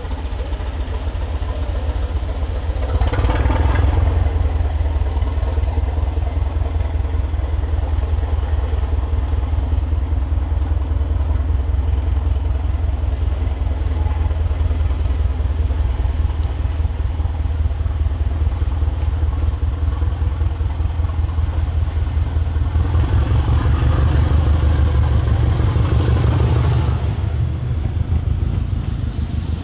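British Rail Class 207 'Thumper' diesel-electric multiple unit running under power, its English Electric four-cylinder diesel giving a deep steady throb that swells louder about three seconds in and again near the end. A faint high whine climbs slowly in pitch throughout.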